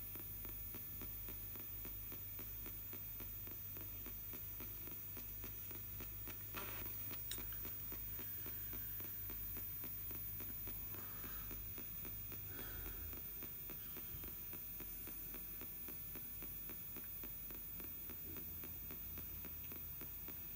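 ITC Research spirit box sweeping the AM band in reverse through a small speaker: steady radio static over a low hum, with a few faint, brief snatches of sound now and then.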